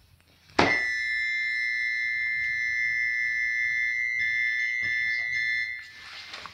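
A single high, organ-like electronic tone from a laptop's speaker. It starts suddenly about half a second in, holds steady for about five seconds without fading, and then stops.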